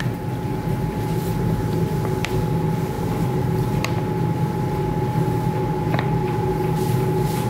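Steady machine hum with a constant whining tone over a low drone, and a few faint clicks.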